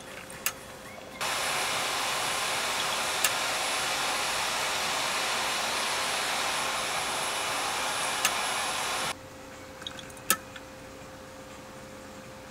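The small motor and plastic-and-brass gear train of a CHINO EL100-06 dotting-type chart recorder running with a steady whir and a thin high whine, starting about a second in and cutting off suddenly some eight seconds later. Single sharp clicks come before, during and just after the run, the loudest a little after it stops.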